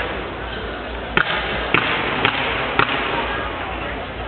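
Fireworks going off: four sharp bangs about half a second apart, starting about a second in, over a steady background noise.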